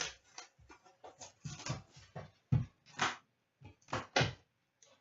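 Irregular crinkling, tearing and tapping of plastic wrap and cardboard as a sealed box of hockey cards is unwrapped and opened by hand.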